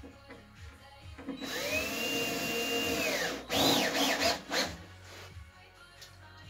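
Cordless drill-driver driving screws into an OSB board. The motor spins up, runs steadily for about a second and a half and winds down, then gives several short trigger bursts as the screw is seated.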